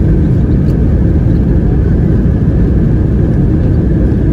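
Airliner noise: a steady, loud low rumble with no change.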